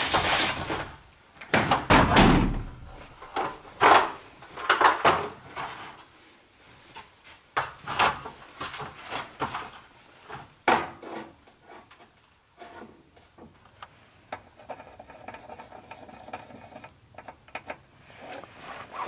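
Knocks and clatter of a stepladder being carried through a doorway and set up, in a cluster of sharp bangs over the first few seconds, then a few lighter knocks as it is climbed, and quieter handling after that.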